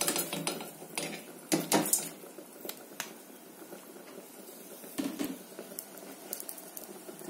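Buckwheat grains pattering from a plastic colander into a stainless-steel saucepan, with clinks and knocks of a metal spoon and the colander against the pan. The loudest knocks come about a second and a half in and again about five seconds in.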